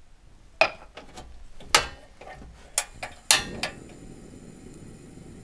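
Kitchen clatter at a portable stove: a quick series of sharp clicks and knocks as the steel wok and cooking gear are handled, then a steady low rushing noise from about three seconds in.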